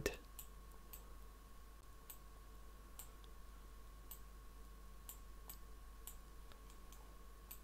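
Computer mouse buttons clicking faintly and irregularly, around fifteen times, as on-screen handles are grabbed and dragged, over a faint steady electrical whine.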